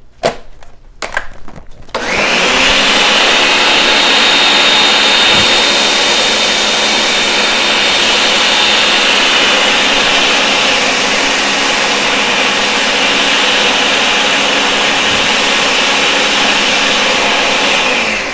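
Countertop blender running at a steady pitch, mixing eggs, condensed milk, milk and powdered milk into pudding batter; it switches on about two seconds in after a few clicks and winds down at the very end.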